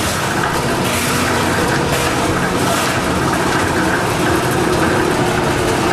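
Portable drum concrete mixer running, its engine going steadily.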